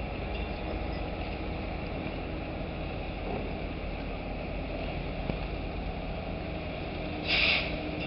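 Dockside crane machinery running with a steady low rumble while the empty clamshell grab hangs on its chains. A short, loud hiss of air about seven seconds in.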